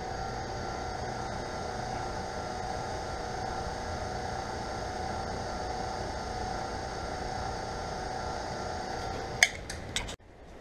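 Small electric wire-stripping machine running with a steady motor hum as a power cord is fed through to score its insulation. The hum stops about nine seconds in, followed by a few clicks.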